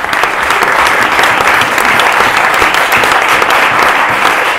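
Audience applauding: many hands clapping in a dense, steady wash, loud throughout.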